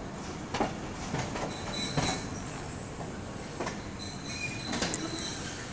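Passenger train rolling slowly along a station platform. Its wheels squeal in thin, high, steady tones that start about two seconds in, with irregular knocks of the wheels over rail joints.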